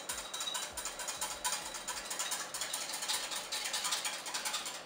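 Wire whisk beating whipping cream, lemon juice and milk in a glass bowl, its wires ticking rapidly and evenly against the glass.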